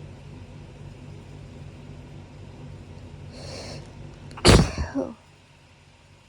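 A person's loud allergic hayfever sneeze about four and a half seconds in, preceded by a sharp breathy intake, over a steady low hum.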